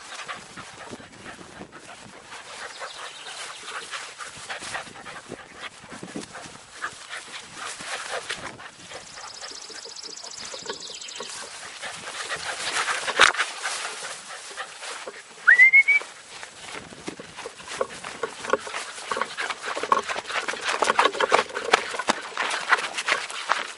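A puppy panting and moving about close to the microphone, with rustling and handling noise throughout. About two-thirds of the way through comes a single short high tone that rises in pitch, the loudest moment.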